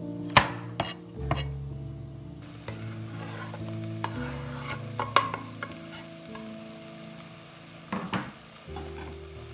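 A few knife chops through red bell pepper on a wooden cutting board, then diced vegetables sizzling in a pot as the chopped pepper is scraped in from the board, with a few knocks along the way.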